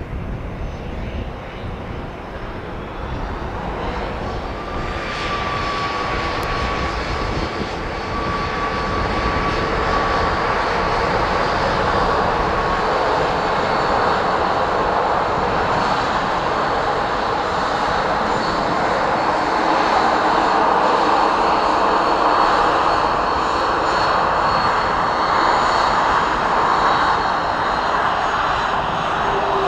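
Airliner's jet engines passing by, growing steadily louder over about twenty seconds and then holding loud, with a thin whine that slides slightly down in pitch.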